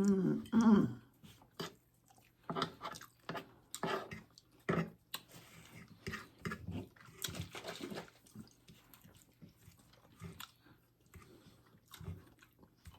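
Close-miked chewing and crunching of crispy tostadas, in irregular bites and crunches, with a brief voiced sound in the first second.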